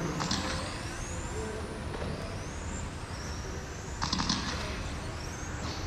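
Electric 1/10-scale RC race cars running on a carpet track: the high whine of their motors rises in pitch several times as they accelerate, over a steady low hum of the hall. Brief rattling bursts come near the start and about four seconds in.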